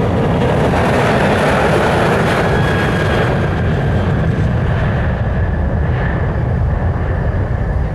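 Boeing 737-800's CFM56 jet engines at takeoff power, a loud rumble with a steady whine on top, loudest early and thinning slowly as the jet climbs away.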